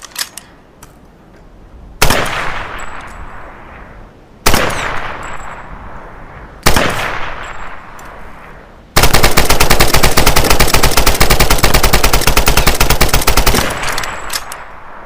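Type 100 submachine gun firing: three separate reports a couple of seconds apart, each ringing out in a long echo, then a sustained full-auto burst of about four and a half seconds that cuts off and echoes away. A few faint clicks come at the very start.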